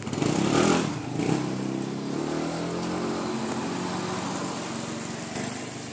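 A motorcycle engine running: a brief rev at first that settles within a couple of seconds into a steady idle.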